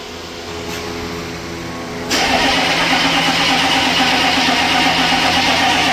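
The 6.5-litre V8 diesel of a 1995 Chevy 3500 is cranked on boosted batteries and starts suddenly about two seconds in, then keeps running loud and steady. This is a hard cold start after sitting all winter. A quieter steady hum comes before it.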